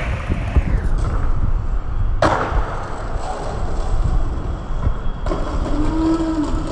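Skateboard wheels rolling over street pavement, a steady rough rumble with a few knocks from the board. The sound changes abruptly twice, about two and five seconds in.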